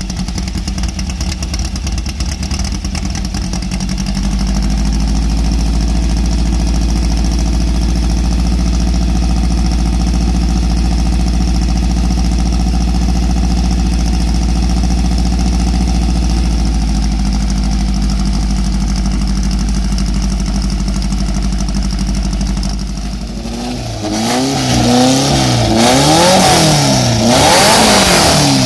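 Classic VW Beetle air-cooled flat-four engine idling steadily, then, about 24 seconds in, revved in a series of quick throttle blips, the pitch rising and falling with each one.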